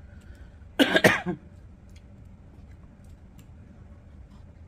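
A person coughing once, briefly, in two or three quick throaty pulses about a second in.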